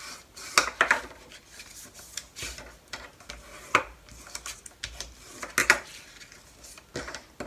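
Cardstock being folded and creased with a bone folder: irregular short scrapes and papery rustles, with a few sharper clicks as the folder and paper meet the cutting mat.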